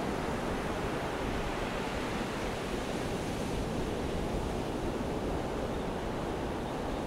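Atlantic surf breaking and washing up a sandy beach in a steady rush.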